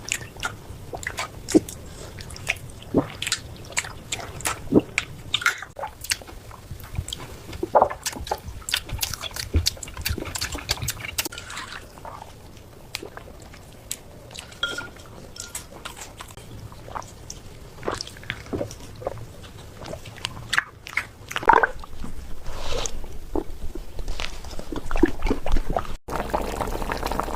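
Pet cats eating from a pot, with irregular wet chewing, smacking and lapping clicks. About 26 s in, after a cut, a steadier bubbling or pouring noise takes over.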